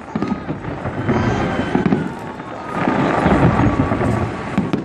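Fireworks display: a continuous dense crackling and booming of bursting aerial shells, with a sharp bang near the end.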